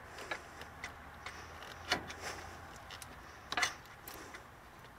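Scattered metal clicks and knocks of a pry bar working against an alternator's mounting bracket, trying to press back the mounting bushing. The loudest knock comes about two seconds in, with a quick double knock a little after three and a half seconds.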